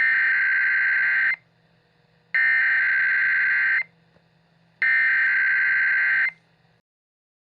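Emergency Alert System SAME header: three identical bursts of digital data tones, each about one and a half seconds long and about a second apart, marking the start of an alert message.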